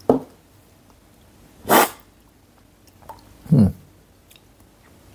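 Coffee slurped hard off a tasting spoon about two seconds in, a short loud hiss of air and liquid, the cupping slurp that sprays the coffee across the palate. A short voiced vocal sound follows about a second and a half later.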